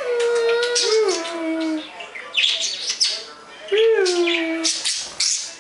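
A pet bird calling: several sharp high chirps, and twice a longer pitched call that slides down in pitch.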